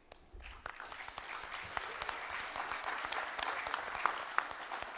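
Audience applauding, building up over the first second or so and then holding steady, with single claps standing out.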